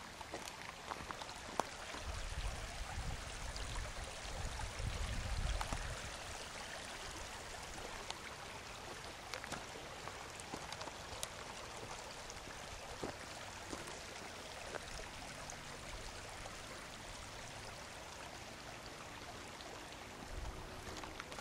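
Shallow rocky creek flowing, a steady rushing babble of water over stones. A low rumble swells from about two to six seconds in, and a few faint ticks sound here and there.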